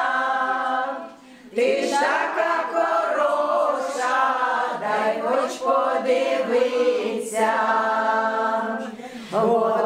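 A group of women singing together unaccompanied, holding long notes, with brief pauses about a second in and near the end.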